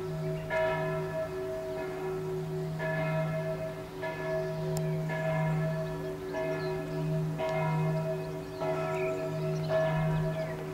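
A church bell ringing, struck about once a second, its hum carrying on between strokes.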